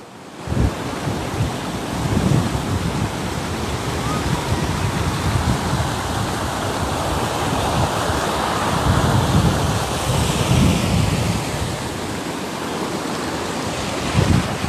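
Muddy floodwater rushing and churning in a steady roar, with wind buffeting the microphone in irregular low thumps.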